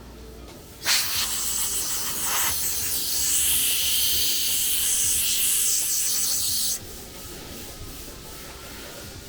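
A loud, even hiss that starts abruptly about a second in and cuts off sharply some six seconds later.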